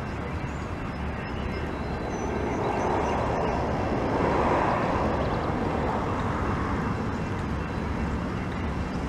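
Steady rumble of a train running on the rails, swelling to its loudest about four to five seconds in, then easing off again.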